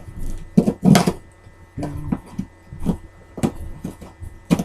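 A cardboard shipping package being opened and handled by hand: a run of short ripping, rustling and scraping noises.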